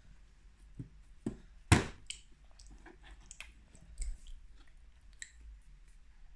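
A toddler chewing pasta with open-mouthed smacking, between scattered clicks and scrapes of a plastic spoon in a plastic bowl. One louder knock comes just under two seconds in.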